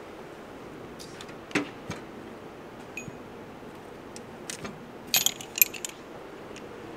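Steel sockets and tools clinking in a rolling tool chest as a 12 mm socket is picked off a socket rail: a single knock about a second and a half in, then a quick run of bright metallic clinks about five seconds in.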